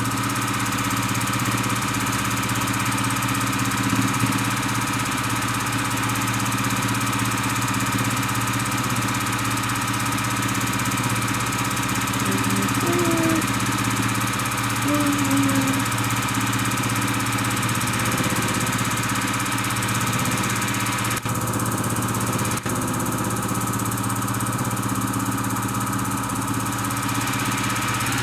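Juki TL2000Qi straight-stitch sewing machine running steadily while free-motion quilting, its needle stitching through the quilt layers.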